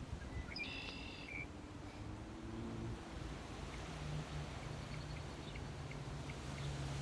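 Outdoor birdsong ambience: a bird gives one short, buzzy call with several stacked tones about a second in, followed by faint scattered chirps over a low, steady hum.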